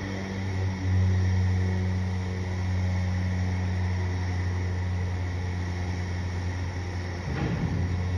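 Steady low electric hum of a cable winch drawing a small roller-coaster car slowly along its track toward the rise. It gets louder about a second in, with a brief rattle near the end.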